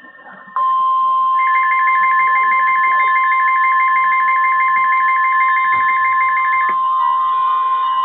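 NOAA Weather Radio warning alarm tone: a single steady high tone that comes in about half a second in and holds. From about a second and a half to nearly seven seconds, a fast, evenly pulsing two-note beeping lies over it, signalling that a warning is about to be read.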